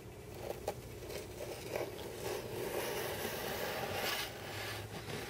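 A small blade scraping along the aileron hinge edge of a moulded fibreglass model wing, pushing the tape up under the top skin: a steady scraping with a few small ticks in the first two seconds.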